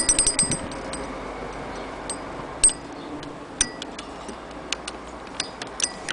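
1890s Singer 12K hand-crank sewing machine's mechanism clicking as its crank is turned by hand. A quick run of metallic ticks comes at the start, then single, unevenly spaced ticks follow.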